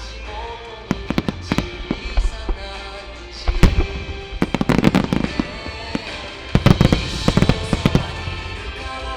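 Aerial fireworks going off in rapid volleys of sharp bangs and crackles, with two dense barrages, one in the middle and one near the end, over the music played for the show.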